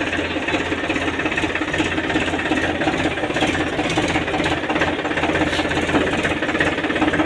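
Diesel tractor engine running steadily at low revs with a fast, even clatter.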